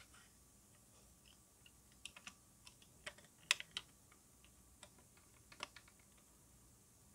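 Faint, scattered clicks and taps of hard plastic model-kit parts being handled, as a clear plastic windscreen piece is pressed into a plastic car body shell. The clicks are loudest about halfway through.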